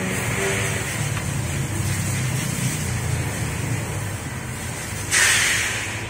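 Steady low workshop rumble, and about five seconds in a sudden loud burst of hissing air that fades within about a second.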